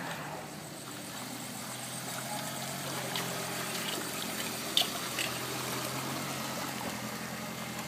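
A Volkswagen Jetta's engine running with a low steady hum as the car drives slowly through shallow floodwater, with water washing around its tyres. A single sharp tap about five seconds in.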